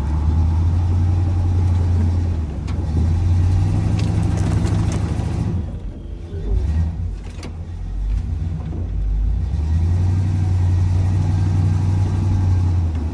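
Chevrolet K20 plow truck's engine running under load and revving, easing off about halfway through and then pulling steadily again, as it works through drifted snow.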